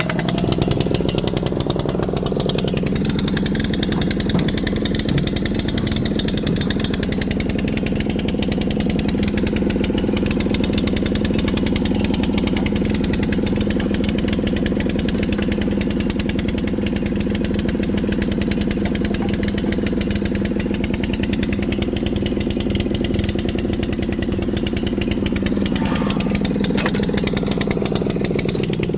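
Log splitter's small gasoline engine running steadily, its pitch dipping briefly about two seconds in and again near the end.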